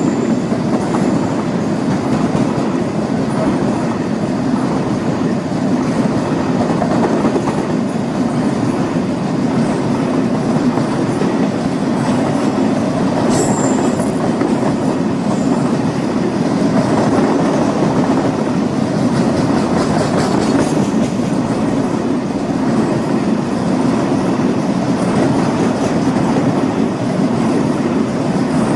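Container freight train's wagons rolling past close by: a steady rumble and clatter of wheels on rail, with a brief high squeal about halfway through.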